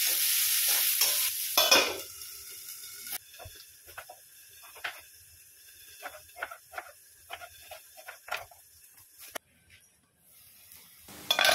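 Chopped shallots sizzling in hot oil in a kadai as they are stirred with a spatula. They are followed by a run of short knife taps on a wooden cutting board as a brinjal is sliced. Near the end the sizzling starts again.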